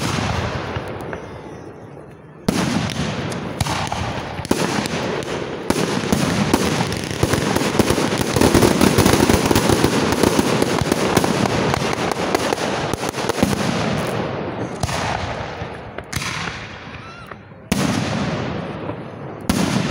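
Fireworks display: a sharp bang at the start, then from a couple of seconds in a dense, continuous barrage of crackling and bangs lasting about ten seconds, followed by a few separate shell bursts, each fading away, near the end.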